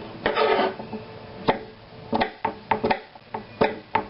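Knife chopping eggplant into cubes on a cutting board: a series of irregular knocks as the blade hits the board.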